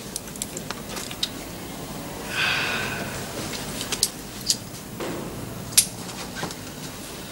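Small handling sounds in a room: scattered light clicks and taps, a brief rustle a little over two seconds in, and a sharper click near six seconds, as small items are taken out of an open case and handled.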